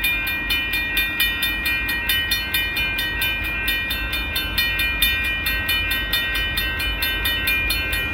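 Railroad crossing warning bells ringing in a fast, even rhythm of several dings a second, the signal that a train is approaching, over a steady low rumble.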